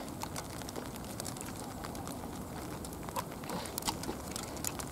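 Quiet outdoor background: a low steady rumble with scattered faint clicks and rustles, a few sharper ones past the middle.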